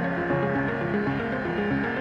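Background music: a synthesised tune of changing pitched notes over a steady low accompaniment.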